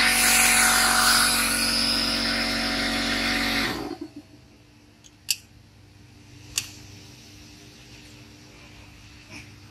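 An electric power tool runs steadily with a whine and cuts off abruptly about four seconds in. A few light clicks follow in the quiet.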